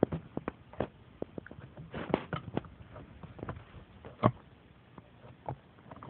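Puppies chewing and biting on a chair: irregular small clicks and knocks of teeth on the chair, with one louder knock about four seconds in.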